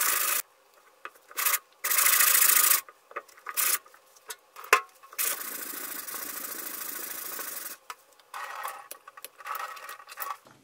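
Hand-held abrasive pad rubbed over a wet black knife blade made from underwear fabric: scratchy sanding strokes in bursts with short gaps, one long steady stroke through the middle, and a single sharp click a little before five seconds in.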